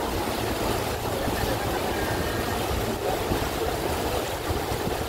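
River cruise boat's engine running steadily, a low hum, with water rushing past the hull.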